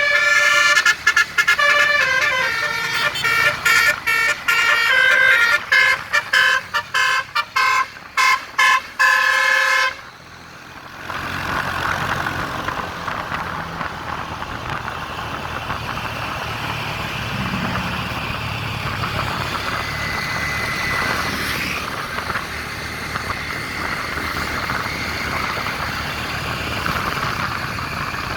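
Bus basuri telolet horn playing a tune of short, stepped notes with brief gaps. It stops suddenly about ten seconds in, and steady road and engine noise follows.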